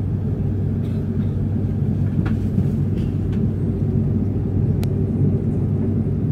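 Airliner cabin noise on the ground at night: a steady low rumble with a constant hum, with a few faint light clicks.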